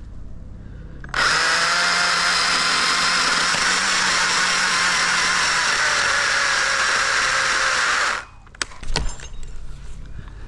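Chainsaw cutting at a steady speed for about seven seconds, starting and stopping abruptly, followed by a few sharp knocks.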